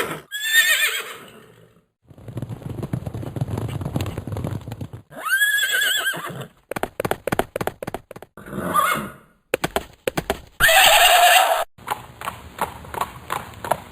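A horse whinnying three times, with runs of hoof clip-clops between the calls and a quick, even clopping of hooves near the end. A low rushing noise lasts a few seconds, starting about two seconds in.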